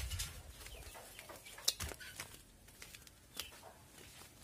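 Faint clucking of chickens with scattered short high chirps, and one sharp click a little under two seconds in.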